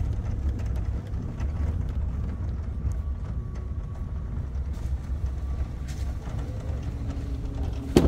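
A car driving along a rutted dirt track: a steady low rumble of engine and tyres.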